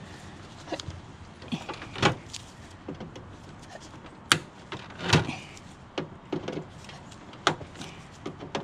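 Irregular metallic clicks and short scrapes of a hand tool working at a steel rivet in a car's front slam panel, the sharpest click about four seconds in. The rivet is spinning freely in its hole instead of being drilled out.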